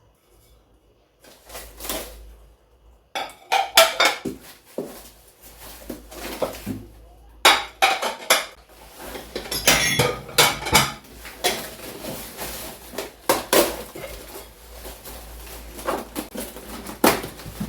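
Dinner plates clinking and knocking against each other as they are unpacked and handled: scattered sharp clinks, starting about a second in and coming thick and fast from about three seconds in.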